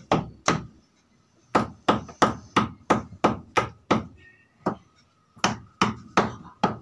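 Rapid, regular knocking on a hard surface, about three knocks a second, with a brief pause about a second in.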